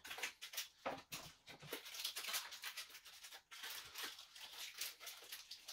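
Paper cupcake cases rustling and crinkling in the hands as a cupcake is worked out of its liner: a faint, irregular crackle of small clicks.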